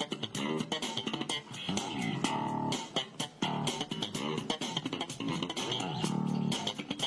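Background music: plucked electric and bass guitar with a steady beat and sliding notes.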